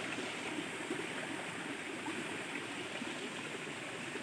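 Running water of a stream, a steady rushing without breaks.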